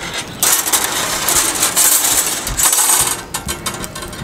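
Long metal skewers clicking and scraping as marinated chicken pieces are handled over a steel bowl and pushed onto them. The rasping, clicking noise is densest for the first three seconds, then quieter.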